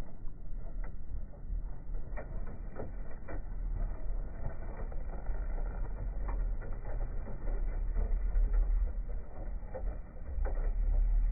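Low wind rumble on the microphone, louder for the last second or so, with scattered light clicks and flutters from young racing pigeons leaving a release basket.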